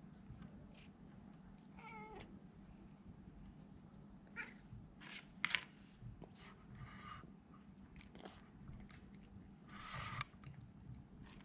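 A domestic cat crunching dry kibble from a plastic bowl in short, scattered crunches, with one short meow about two seconds in.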